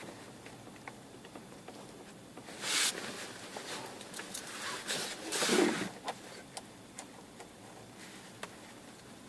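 Handling noises from hands working on speaker wiring: scattered small clicks, with two brief rustles about three seconds in and again about five and a half seconds in.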